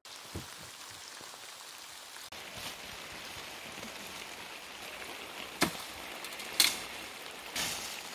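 Leafy birch branches rustling as a felled tree is pulled apart and cleared, with three short sharp snaps in the second half.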